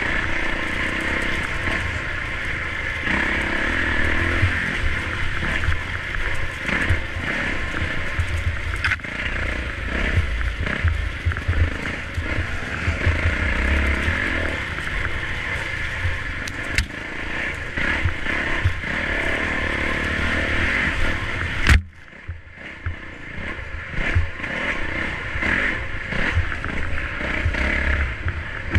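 Dirt bike engine running under way on a trail, with rattling and scraping mixed in. About three-quarters through, a sharp click, then the sound drops suddenly quieter before building back up.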